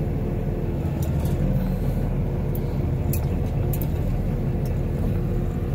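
Truck engine running steadily, heard from inside the cab, while the Smithco side dump trailer tips its load of broken concrete; a few sharp clicks come through.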